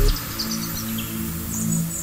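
Background music: a soft passage of held low notes with light high chirping figures, the drum beat dropping out as it begins.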